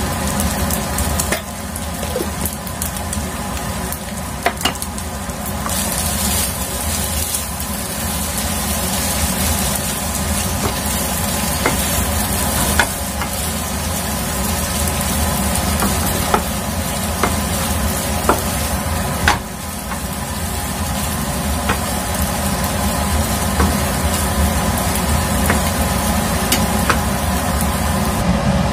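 Flat rice noodles (kwetiau) stir-frying in a nonstick frying pan, sizzling steadily, while a wooden spatula scrapes and taps against the pan as the noodles are tossed.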